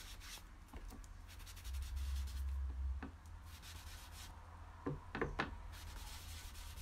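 Craft sponge being rubbed and dabbed over cardstock in quick repeated strokes, applying ink through a mask: a soft, dense scratchy rubbing.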